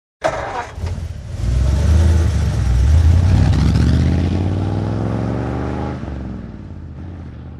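An old truck engine is started: a rough burst as it turns over, then it catches about a second in and runs loud. Its pitch rises slowly as it revs, then it drops and fades away near the end.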